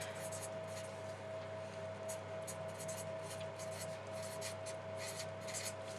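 Handwriting: a run of short, irregular scratchy pen strokes, over a steady electrical hum.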